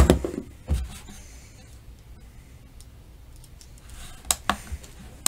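Quiet handling of a plastic speed cube and a Speedstacks Gen 5 stackmat timer: a soft knock about a second in, then a few short, sharp plastic taps about four seconds in.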